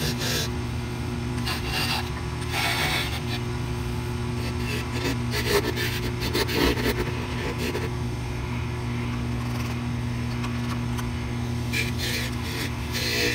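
A small wood lathe running with a steady hum while a turning chisel cuts the spinning red ash wand blank, giving rasping scrapes that come and go several times.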